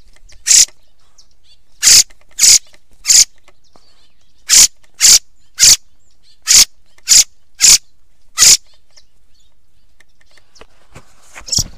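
Zorzal (thrush) lure call: short, sharp, high calls, mostly in quick runs of three about half a second apart, the sound used to call thrushes in for hunting. The calls pause for about two seconds near the end, then start again.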